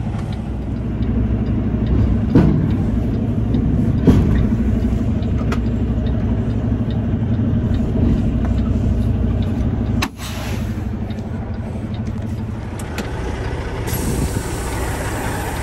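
Semi-truck diesel engine idling steadily, heard from inside the cab, with two sharp knocks a few seconds in and a brief drop-out about ten seconds in. Near the end a rush of air begins as the red trailer air supply valve is operated to fill the empty trailer's air tanks.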